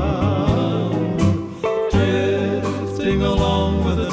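Male vocal group singing a western song in close harmony, with strummed acoustic guitar and upright bass underneath.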